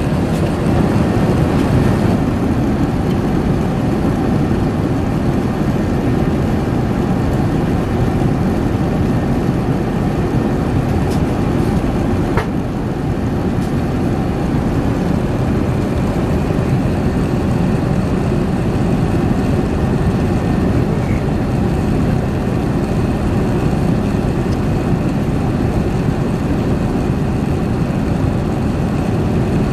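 Steady cabin noise of an Airbus A380 in cruise: a constant low rush of airflow and engine hum.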